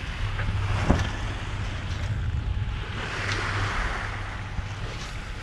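Wind buffeting the microphone over the wash of sea water along a sailboat's hull under way, with a steady low rumble and a swell of hissing spray about three seconds in. A single knock sounds about a second in.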